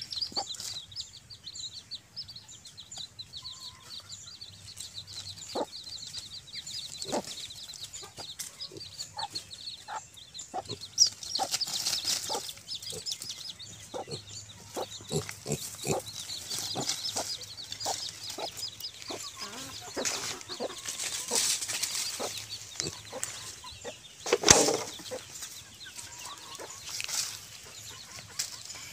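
Chickens clucking and pigs grunting while rooting through dry leaves and dirt, with rustling and scratching throughout and a rapid high chirping in the first half. A sudden loud sound about three-quarters of the way through is the loudest moment.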